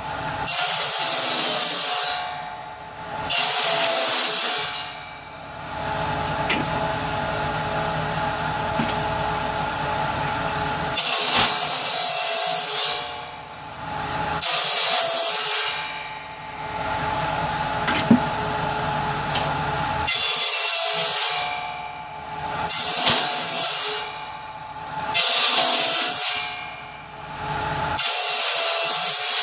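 A saw cutting wood into kindling, eight cuts of about a second each, with a steady tone running underneath between the cuts.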